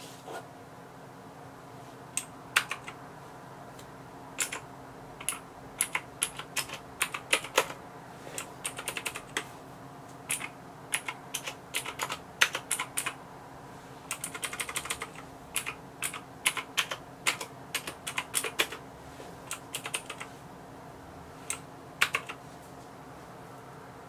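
Keys of a Maxtill TRON G610K Falcon mechanical keyboard being pressed: scattered single key clicks and short runs of quick keystrokes, with pauses between.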